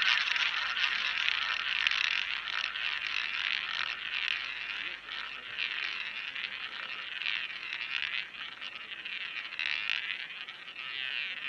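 Roulette ball rolling around the track of a spinning roulette wheel, a steady whirr that gradually gets quieter.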